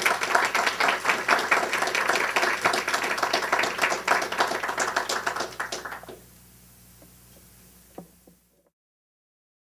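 Audience applauding, a dense patter of many hands clapping that dies away about six seconds in. A single faint tap follows near the end, then the sound cuts off to dead silence.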